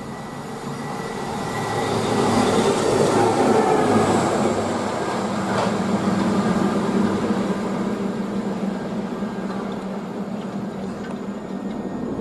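Rail track maintenance machine running through at speed: its engine and wheels on the rails grow louder as it approaches, are loudest as it passes, then fade as it moves away. A single sharp clank comes about halfway through.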